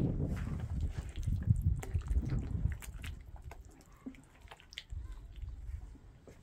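Wet mud mortar being scooped up and squeezed by hand, with many small clicks and crunches of grit. A low rumble fills the first couple of seconds.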